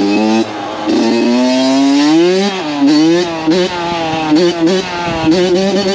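Dirt bike engine running under throttle, its pitch rising and falling over and over as it is revved and eased off.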